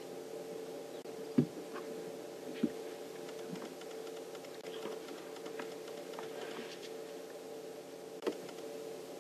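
Young bull elephants sparring, their tusks knocking together in sharp clacks: a loud one about a second and a half in, another a second later and one near the end, with lighter clicks between.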